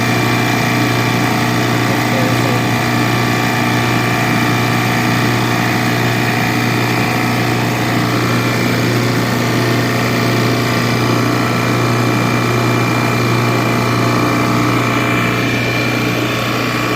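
JB F6 refrigerant recovery machine running steadily with a constant machine hum as its compressor pulls refrigerant out of an AC unit into the recovery cylinder.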